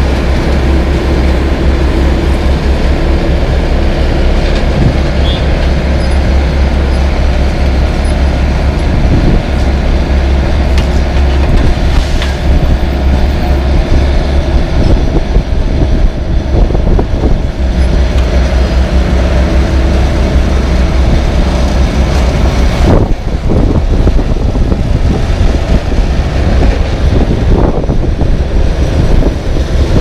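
LeeBoy 8515B asphalt paver's diesel engine running steadily close by, buffeted by heavy wind rumble on the microphone, with a few knocks and clanks from work at the paver.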